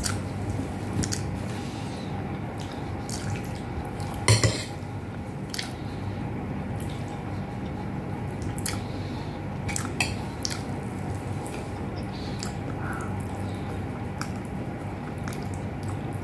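Close-up eating sounds: wet mouth smacks and chewing of beef and eggplant with rice, with a metal spoon and fingers working against ceramic plates. There is one louder clatter about four seconds in, over a steady low hum.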